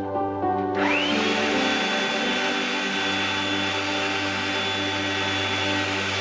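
An electric motor switches on under a second in: its whine rises quickly, then it runs steadily with a rushing noise.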